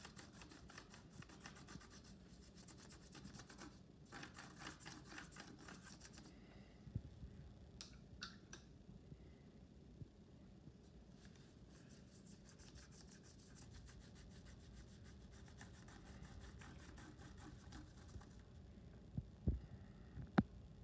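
Faint scrubbing of a paintbrush across paper in quick repeated strokes for the first several seconds, then quieter with a few small ticks. Two knocks near the end.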